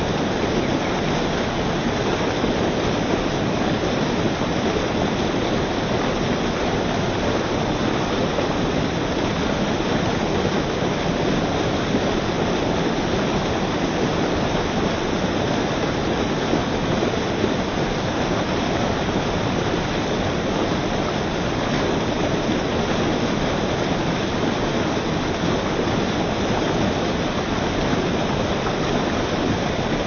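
Fast mill-stream water rushing and splashing over rocks, with a heavy outflow pouring into the white water; a steady, unbroken rush.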